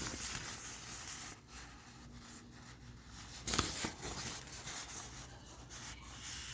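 Paper ad flyer being handled and its pages turned, a rustling with one sharper crinkle about three and a half seconds in.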